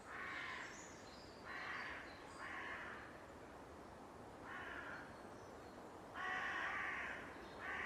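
Crows cawing, about six harsh calls spaced irregularly, with one longer call about six seconds in.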